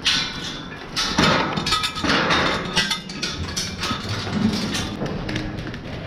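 Steel barn gates and headlock bars clanking and rattling: a run of knocks and clatters, busiest a second or two in.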